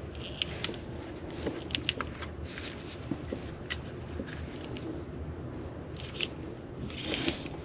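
Scattered light clicks and taps of small engine parts being handled, over a steady low background hum.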